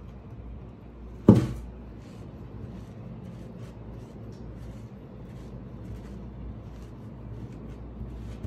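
One sharp knock about a second in, then faint small taps and soft rubbing as a sand-filled cloth pompom presses a clay slab into a ceramic bowl mold, over a low steady hum.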